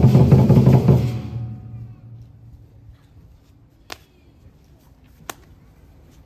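Loud drum-led percussion music from the procession performance, which stops about a second in. A low background follows, broken by two sharp clicks.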